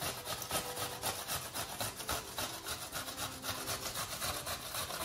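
Red onion scraped against a kitchen grater in quick, even rasping strokes, several a second.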